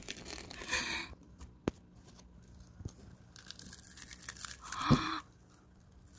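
Crisp crunching as a child bites and chews a deep-fried menbosha (shrimp toast) close to the microphone, with a louder bump near the end.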